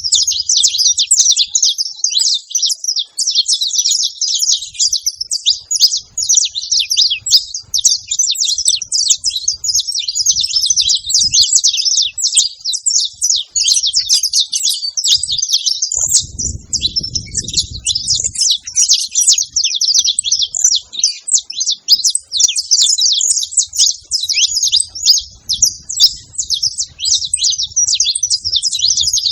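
Several saffron finches chattering together in a dense, continuous run of overlapping high chirps.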